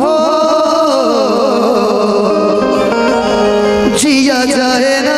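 Live Hindi song with instrumental accompaniment. A singer draws out one long, wavering note for about four seconds, and a new sung phrase begins near the end.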